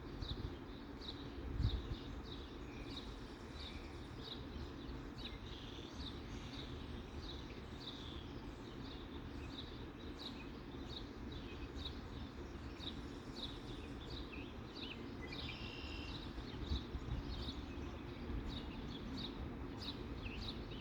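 Small birds chirping: short high chirps repeated about twice a second over a steady low rumble of outdoor noise. A single thump comes about two seconds in.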